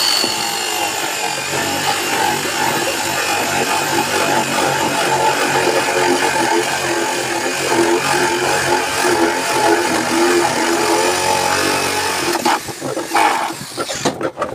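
Handheld electric jigsaw running and cutting into a wooden drawer panel, a steady motor and blade sound that stops about twelve seconds in, followed by a few short knocks and rattles.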